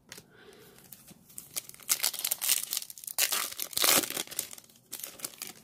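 Foil wrapper of a Topps trading card pack crinkling and tearing as it is opened by hand, a run of quick crackles loudest about two to four seconds in.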